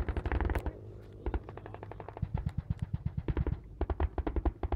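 Automatic gunfire in rapid bursts, about ten shots a second, with short breaks between the bursts.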